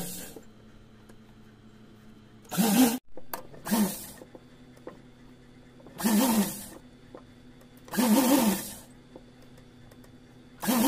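Sewing machine running in five short bursts of about half a second each, its speed rising and falling in each burst as a frill sleeve is stitched onto a small bodice.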